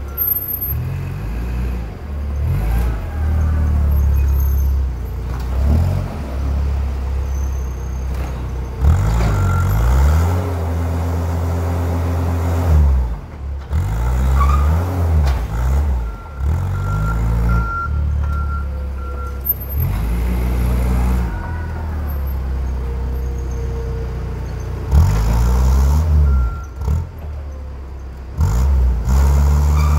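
Propane forklift engine of a Toyota clamp truck running, its speed rising and falling again and again as the truck manoeuvres. A high, thin beep comes and goes at times.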